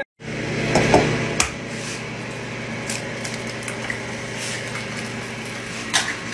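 An egg sizzling as it fries in oil in a hot pan, over a low steady hum. There are a few knocks about a second in and a sharp click near the end.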